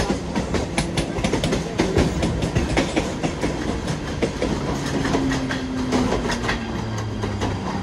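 Mumbai suburban local trains (EMUs) running: steel wheels clattering over rail joints in a dense, irregular run of clicks over a steady rumble, heard from the open doorway of a moving coach as another local passes on the next track. A low steady hum comes in over the last few seconds.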